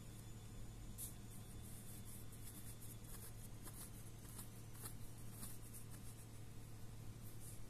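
Washing machine running quietly: a steady low hum with faint, irregular high ticking and rustling over it from about a second in.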